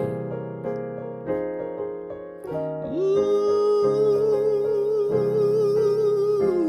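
Song intro in a slow soul-jazz groove: keyboard chords, then from about three seconds in a long wordless sung note with vibrato, held for about three and a half seconds before sliding into the next note.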